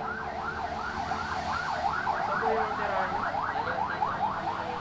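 Electronic siren warbling rapidly up and down, several sweeps a second, the sweeps getting faster past the middle.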